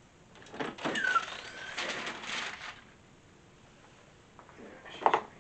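A clamshell heat press being opened: clattering metal with a short falling squeak as the handle lifts the upper platen, followed by rustling of the cover sheet and shirt. A sharp click comes near the end.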